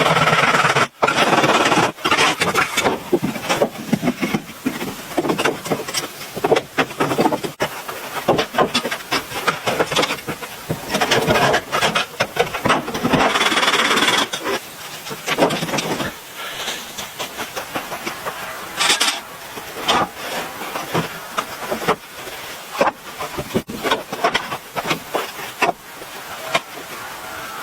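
Wood being worked by hand: rough scraping strokes in uneven bursts, with scattered sharp knocks.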